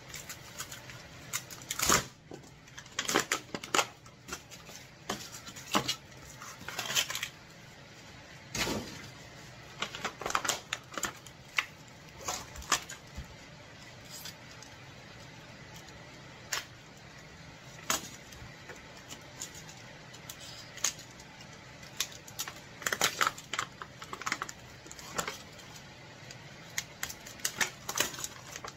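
A small hand tool scraping and knocking against lithium iron phosphate battery cells as stuck expanding foam and tape are pried off. The scrapes and clicks come irregularly, sometimes several a second, with short pauses between them.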